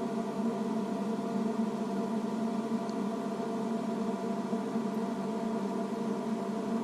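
Steady machine hum made of several fixed tones, unchanging throughout.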